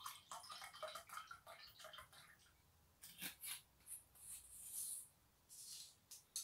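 Faint handling of bottles at a table: soft rustles and knocks, a sharp click about three seconds in, and another click near the end.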